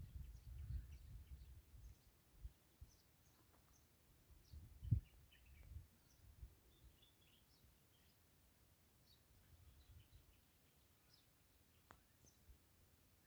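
Faint, scattered short chirps of small birds against a quiet background, with a low rumble fading away in the first couple of seconds and a single low thump about five seconds in.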